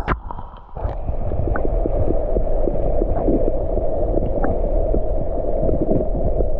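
River water gurgling and sloshing close to the microphone, dense and muffled, starting about a second in after a short click.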